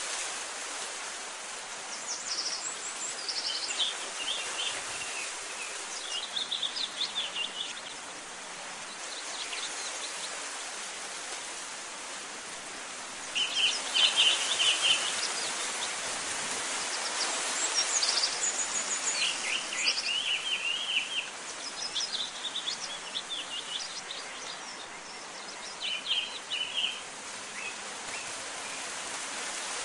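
Small birds chirping in short runs of quick high notes, again and again, over a steady outdoor hiss.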